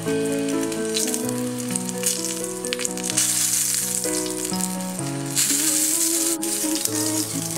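Fat edge of a thick sirloin steak sizzling and crackling in hot oil as it is seared upright in the pan. The sizzle swells louder twice, about three seconds in and again a little after five seconds. Background music plays throughout.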